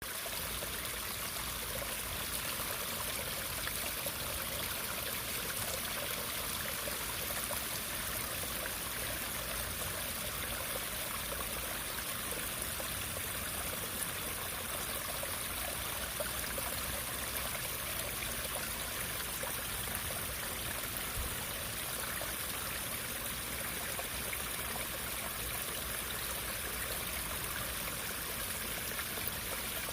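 Running water, flowing steadily and evenly with no breaks or changes.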